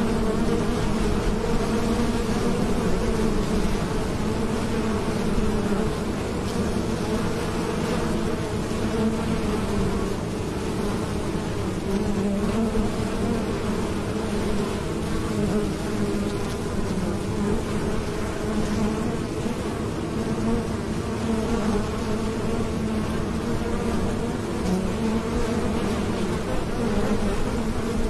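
Honeybees buzzing at a hive entrance, with many bees flying in and out together and making a steady, dense hum.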